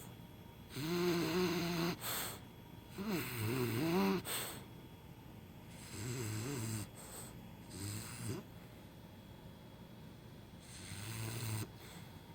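Snoring in sleep, in about six separate breaths roughly a second long. Several carry a wavering, voice-like pitched sound as the sleeper dreams.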